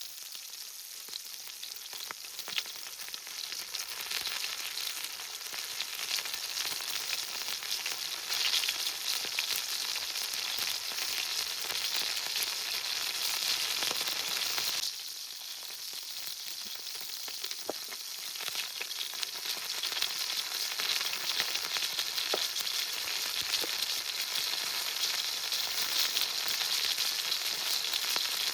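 Food sizzling and spitting in a hot frying pan: a steady hiss with fine crackles, dropping suddenly about halfway through and building back up.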